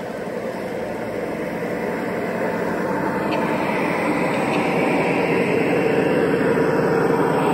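G-scale model diesel locomotives running past at speed, their motors, gearing and wheels on the rails making a steady mechanical rumble with a faint whine, growing louder as they come closer.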